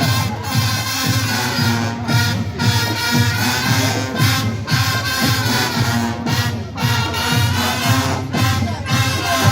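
Marching brass band playing: brass instruments sounding held, layered chords over a steady drum beat.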